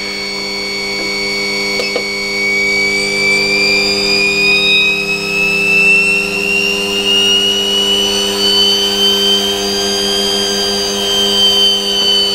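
Small electric motor running at speed, around 3,000 rpm, with a steady hum under a high whine. The whine rises slowly in pitch as the motor speeds up over several seconds, then holds.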